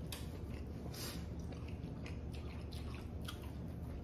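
Wet eating sounds of a seafood boil in butter sauce: chewing and smacking, heard as a string of short, irregular clicks over a low steady hum.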